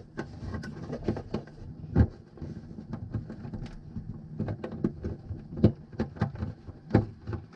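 Irregular clicks, taps and rustling of hands working a cable and plug behind a fibreglass boat dashboard. There are a few sharper knocks, one about two seconds in and two more close together near the end.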